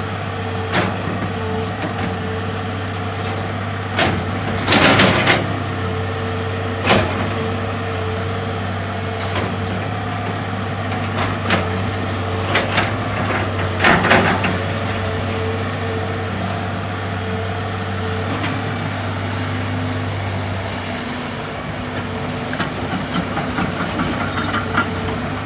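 Heavy diesel engine of a hydraulic excavator running steadily, with sharp knocks and two brief loud rushing noises, about 5 and 14 seconds in. Near the end the engine's low hum drops and its note changes.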